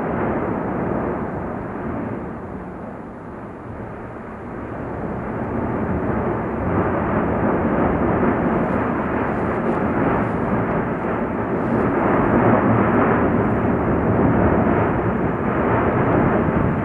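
La Palma volcano's main crater in an explosive phase, jetting gas and fountaining lava with a continuous, jet-like rushing roar. It eases for a few seconds, then builds again about a third of the way in and stays loud.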